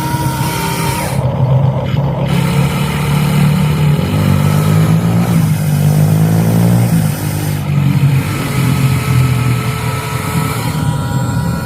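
Vehicle engine sound running steadily, its pitch stepping up and down as it revs.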